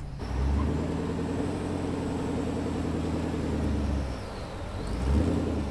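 Engine of a tube-chassis rock crawler running steadily at low revs as it crawls through a deep water crossing. It eases off about four seconds in and picks up again near the end.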